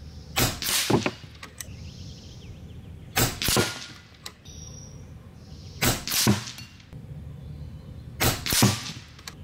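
Four shots from a Hatsan Factor RC Sniper Long PCP air rifle, about two and a half seconds apart. Each shot is followed a fraction of a second later by the smack of the pellet striking a metal knockdown target.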